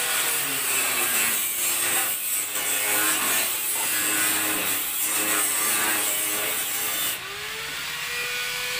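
Irregular rubbing and scraping as multimeter probe tips are worked into the pins of a motorcycle stator's plastic wiring connector. A faint tone rises and levels off about seven seconds in.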